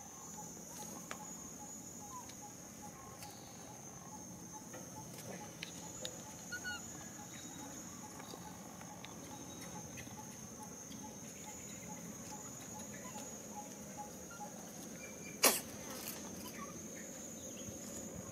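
Steady high-pitched insect drone, like crickets or cicadas, with a faint regular pulsing lower down during the first half. A single sharp click or knock stands out about fifteen seconds in.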